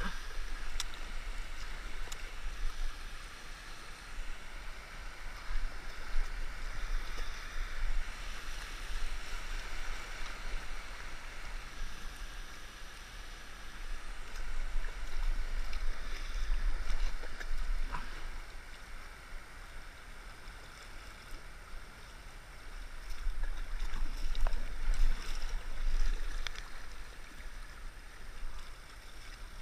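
Kayak paddle strokes: the blades dip and pull through shallow water, and water swishes and splashes along the hull, the sound swelling and easing over a few seconds at a time. A steady low rumble runs underneath.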